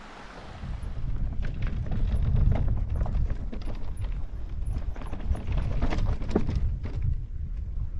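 Electric mountain bike riding over rough, rocky trail: irregular knocks and rattles as the tyres and frame strike stones, over a heavy low rumble that starts about a second in.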